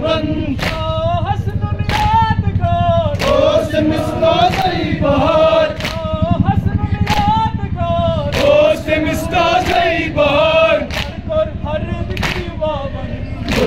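A crowd of male mourners chanting a Kashmiri noha (Muharram lament) in unison, in long drawn-out lines. Sharp slaps keep a steady beat about every second and a quarter, the mourners' chest-beating (matam).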